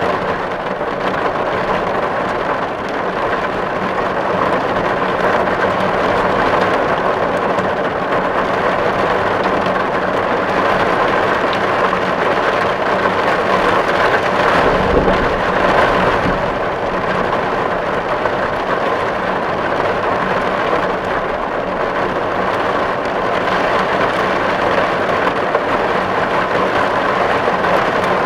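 Steady rain drumming on a tin roof as an even, dense patter of drops on the metal, swelling slightly about halfway through.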